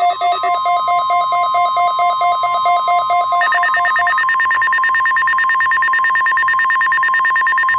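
NOAA Weather Radio warning alarm tone: a steady single tone near 1 kHz, the signal that switches on weather alert receivers, with rapid pulsing alert beeps over it. About three and a half seconds in, the beeps change to a higher, faster pattern.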